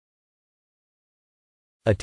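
Digital silence, with nothing audible, until a narrator's voice begins just before the end.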